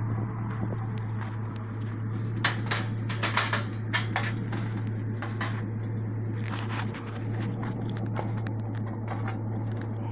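Raccoon in a wire cage trap growling with a low, steady rumble. The trap's wire mesh clinks and rattles in short runs of clicks about two to four seconds in and again around seven seconds in.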